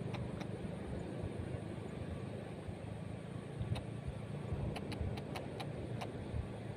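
Steady low hum of a distant engine running, under a haze of outdoor noise, with several light clicks in the second half.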